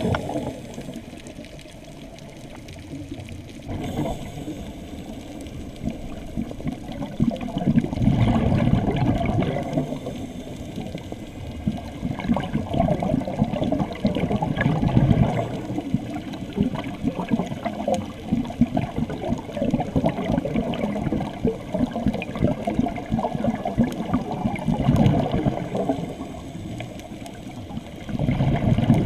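Scuba diver breathing through a regulator underwater: bursts of exhaled bubbles gushing past every several seconds, with a steady bubbling wash between them.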